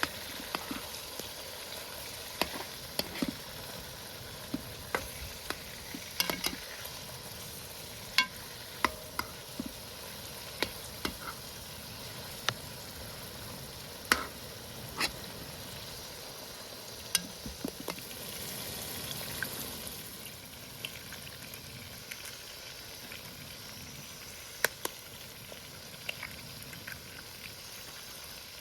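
Food sizzling as it fries in a pan over a fire, with frequent sharp clicks and taps scattered through it. The sizzle swells briefly about two-thirds of the way in, then settles slightly quieter.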